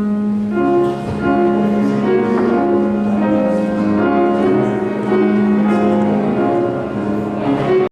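Instrumental postlude music on a keyboard instrument: a low note held for about six seconds beneath a moving line of sustained notes.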